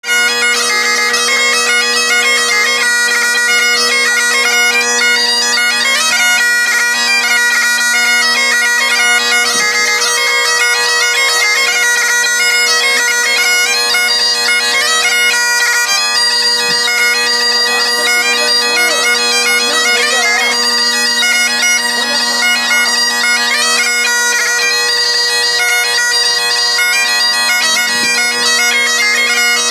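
Great Highland bagpipe playing a melody over its steady, unbroken drones.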